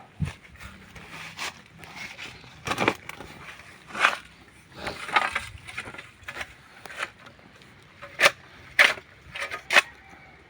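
Crunching and scraping in burnt debris and ash as it is sifted for bones, with a string of sharp cracks and clicks, the loudest about eight and nine seconds in.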